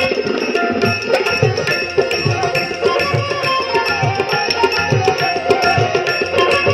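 Instrumental interlude of Bengali Baul folk music with no singing: a plucked dotara and a bansuri flute melody over a steady hand-drum rhythm whose low strokes bend downward in pitch.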